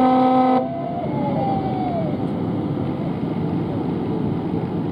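Ship's horn sounding one steady blast that cuts off abruptly about half a second in, followed by a steady background of noise.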